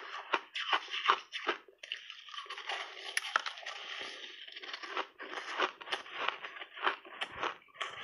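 Close-miked biting and chewing of a block of crunchy snow ice soaked in berry juice: a rapid run of crisp crackling crunches, with a brief lull about two seconds in before the crunching picks up again.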